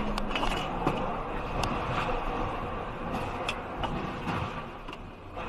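Steady road and engine noise heard from inside a following vehicle, with scattered light clicks and knocks and no single loud impact. It gets a little quieter near the end.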